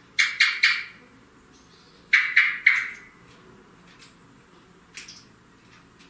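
Eurasian blackbird calling: short, sharp calls, three in quick succession, then another run of three about two seconds later, and a fainter single call near the end.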